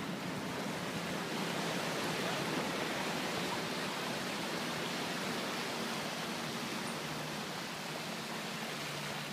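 Ocean surf washing up onto a sandy beach: a steady rushing hiss that swells slightly a couple of seconds in.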